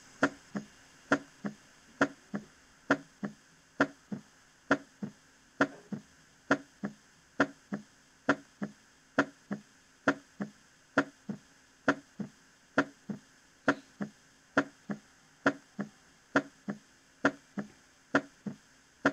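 Recorded human heart sounds: a steady lub-dub rhythm of paired beats (S1 and S2), a little slower than one beat per second. The second heart sound shows physiological splitting, heard as two close components on inspiration and as a single sound on expiration.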